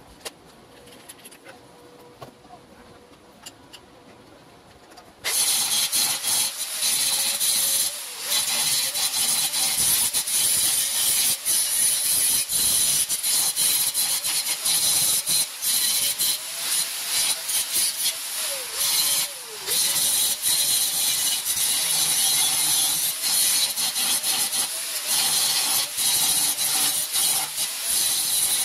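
Angle grinder's abrasive disc working steel. It starts abruptly about five seconds in and then runs on as a harsh, high-pitched hiss, with short dips where the disc eases off the metal.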